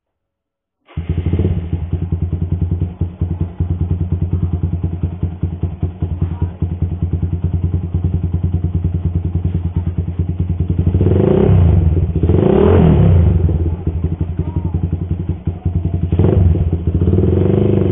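Single-cylinder four-stroke engine of a Suzuki Satria FU, tuned up to 200cc, running from about a second in with a fast, even beat, and blipped a few times in the second half so that the revs rise and fall.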